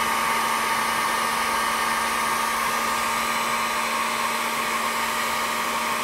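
Heat gun running on its high setting, blowing a steady rush of air with a constant motor whine.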